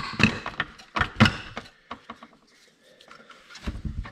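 Hard plastic knocking and clattering as glued coil rings are wrenched out of a plastic transmitter housing: a few sharp knocks near the start and about a second in, scattered smaller clicks, then another cluster of knocks near the end.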